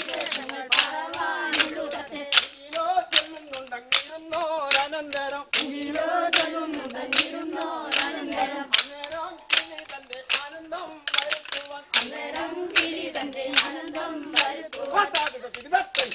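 Kolkali stick dance: a group, mostly women, singing a folk song together while striking short wooden sticks against each other in a steady beat of sharp clacks.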